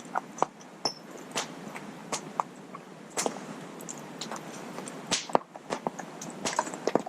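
Wood campfire crackling: irregular sharp pops and snaps over a low steady hiss.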